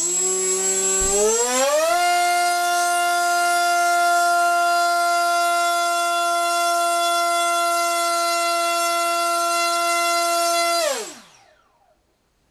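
RCX H1806 2400KV brushless motor driving an HQ 5x4 propeller on a thrust stand, run up to full throttle on a 3S battery. It is a high-pitched whine that rises in pitch over the first couple of seconds, holds steady for about nine seconds, then winds down quickly when the throttle is cut. A low thump sounds about a second in.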